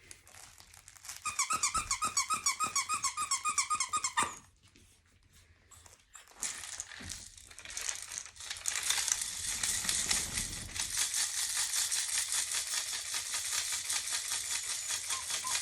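A squeaky dog toy squeezed rapidly, a quick string of high squeaks for about three seconds, followed after a short pause by continuous crinkling of a crinkle toy being handled, used as sound stimulation for young puppies.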